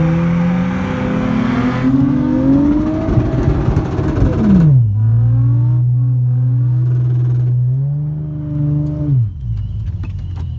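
Car engine revving: the pitch climbs, drops sharply, holds at a steady note for a few seconds, then climbs and drops again near the end.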